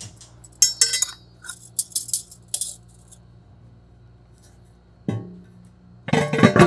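Metal clinking and rattling as the centrifugal blower's housing and its band clamp are handled and pushed back onto the blower, with a thump about five seconds in and a louder clatter near the end.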